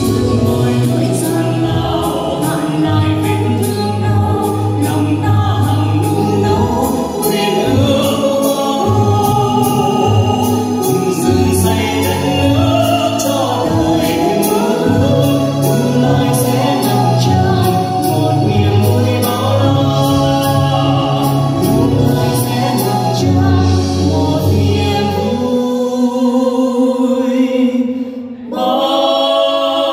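A man and a woman singing a duet into microphones over instrumental accompaniment, amplified through the hall's loudspeakers. The music dips briefly near the end, then carries on.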